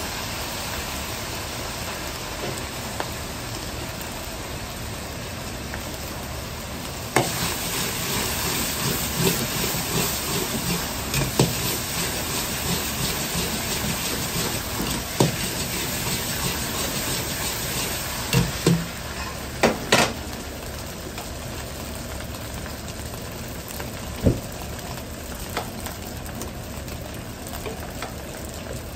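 Egg fried rice sizzling in a wok as soy sauce is poured in. About a quarter of the way in the stir-frying picks up: a louder sizzle, with the metal ladle scraping the wok and knocking against it in several sharp clanks.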